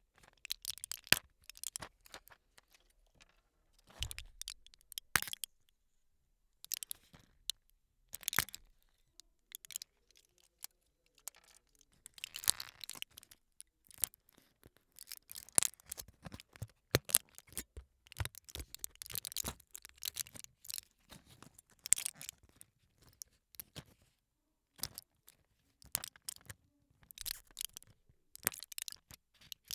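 Pills being popped out of a foil blister pack: the foil crackles and crinkles in irregular bursts of sharp clicks as each pill is pushed through, with short pauses between handlings.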